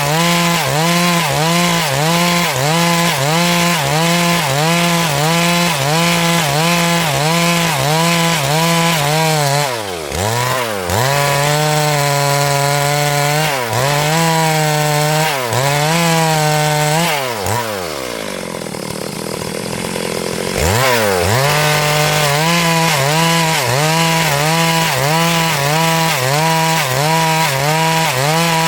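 Stihl MS382 two-stroke chainsaw at high revs cutting wood, its pitch wavering in a steady rhythm of about one and a half swells a second. A little past the middle it drops toward idle for a few seconds, then revs back up and carries on cutting.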